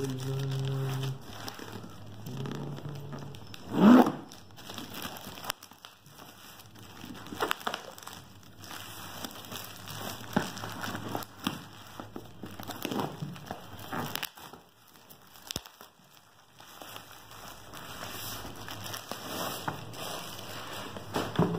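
Plastic courier mailer and bubble wrap crinkling and tearing as they are slit with a pocket knife and pulled off a shoebox, with irregular crackles throughout. One loud short rising sound about four seconds in.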